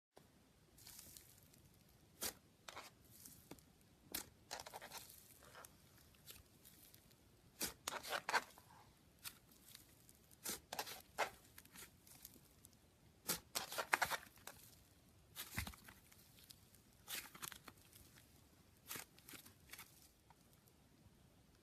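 Slime being squeezed, poked and pulled apart by hand, giving irregular sticky clicks and pops, some in quick clusters.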